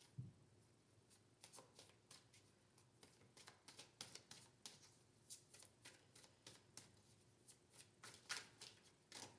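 Oracle cards being handled and shuffled by hand: faint, irregular soft clicks and flicks of card stock.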